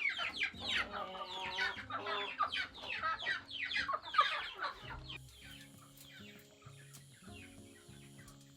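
A flock of chickens calling over one another in a dense, rapid chatter for about five seconds, then fading away. Soft background music with held notes remains underneath and is left on its own near the end.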